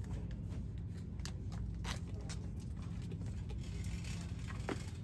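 Steady low hum of a shop's background noise, with a few light clicks and rustles as a pack of paper is handled and a shopping cart is pushed down the aisle.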